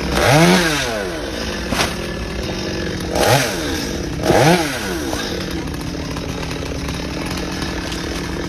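Chainsaw engine idling, blipped to higher revs three times in quick rising-and-falling sweeps, with a sharp click between the first two.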